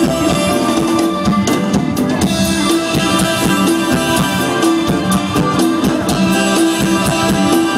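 Live mor lam band music heard loud through the PA: an instrumental passage with a steady drum-kit beat under sustained melody and bass instruments, no singing.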